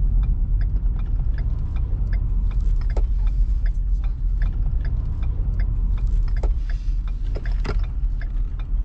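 Steady low road and engine rumble heard inside the cab of a diesel Ford Super Duty pickup driving along, with scattered light clicks and rattles.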